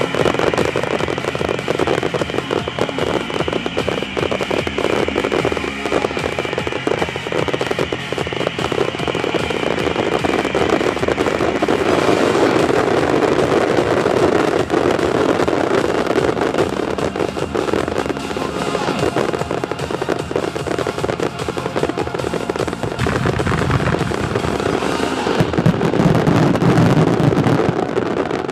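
Dense fireworks barrage: a continuous run of rapid bangs and crackling, with music playing along for the first part. The bangs grow deeper and heavier near the end.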